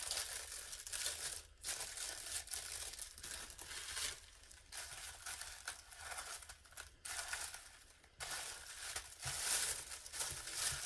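Packaging crinkling in the hands: a clear plastic bag and then a silver paper-wrapped package being handled and pulled open. It comes in irregular bursts with short pauses and is loudest near the end as the wrapping is opened.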